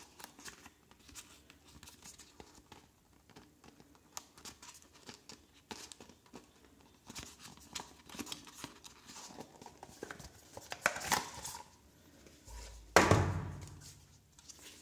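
Cardboard retail packaging being handled: scattered crinkles, scrapes and small clicks as a paper tray is worked loose from its box, with a louder thump near the end as the insert comes free.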